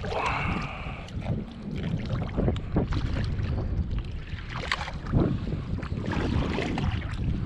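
Wind buffeting the microphone over a steady low rumble of open water, broken by splashes and small clicks as a small triggerfish is reeled to the kayak and thrashes at the surface, with a sharp splash about five seconds in.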